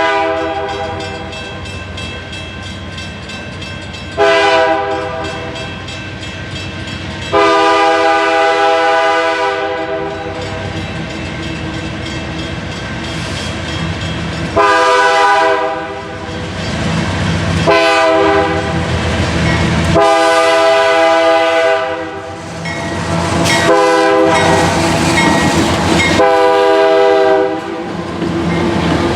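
CSX freight train's diesel locomotive air horn sounding a series of long and short chord blasts over the low rumble of the passing locomotives.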